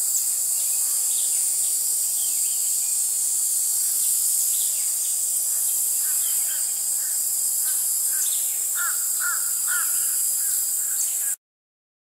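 Cicadas in a steady, high-pitched chorus, with a bird calling in short repeated notes behind them, most strongly in a quick series about nine seconds in. The recording cuts off abruptly about a second before the end.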